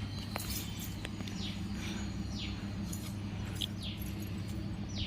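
A bird calling with short chirps that slide down in pitch, repeated every second or so, over a steady low hum.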